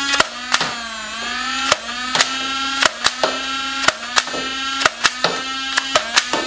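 Nerf Alpha Strike Flyte CS-10 flywheel blaster held revved and firing: the battery-driven flywheel motors whine steadily, dropping in pitch and spinning back up about once a second as each dart is pushed through, with sharp clicks coming through again and again.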